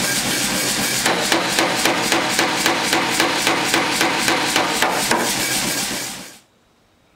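Power hammer pounding a red-hot steel bar through a guided top tool: a steady, rapid run of metal-on-metal blows, about three or four a second, that stops suddenly about six seconds in.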